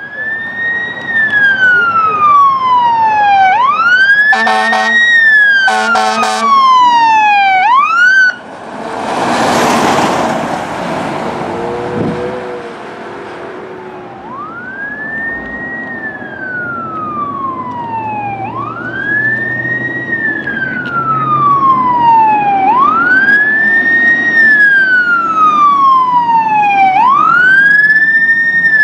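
A fire engine's siren wailing in repeated sweeps about every three seconds, each rising quickly and falling slowly. Two short pulsing horn blasts come about four and six seconds in, and a loud rushing noise comes around ten seconds in, before the siren wail resumes.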